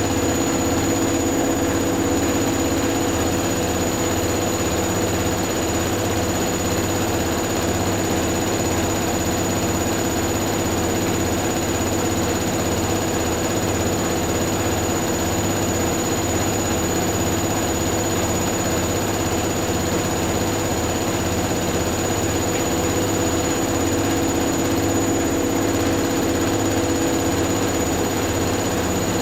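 Two front-loading washing machines, a Hoover Dynamic Next DXA610IW3 and a Whirlpool AWM1850, running their spin cycles together: a steady motor hum and whine over the rush of the spinning drums, with a regular low pulsing.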